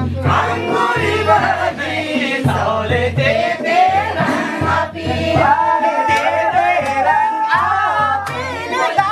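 Background music: a song with singing over a recurring low bass line.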